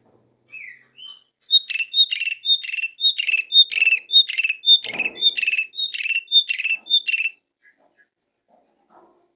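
Asian pied starling (jalak suren) calling: two short notes, then a rapidly repeated two-note phrase, a high note dropping to a lower one, about twice a second for some six seconds before it stops.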